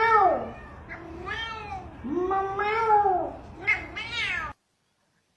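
A cat meowing repeatedly, about four drawn-out meows, the longest in the middle. The last meow cuts off abruptly.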